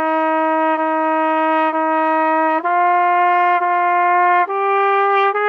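Trumpet playing long tongued notes with barely any gap between them, tenuto style: each note is held about a second, repeated two or three times on one pitch before stepping up to the next, so the line climbs by step.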